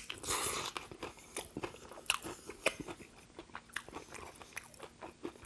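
KFC crispy hot wing bitten into with a crunch of the fried breading in the first second, then chewed with a scattering of smaller crisp crunches.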